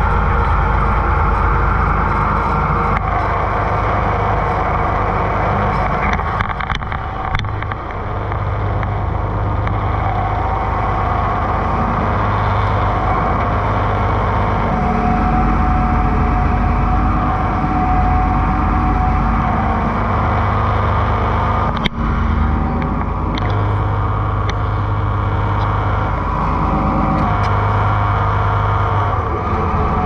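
Farm machine's engine running steadily, its pitch shifting slightly a few times.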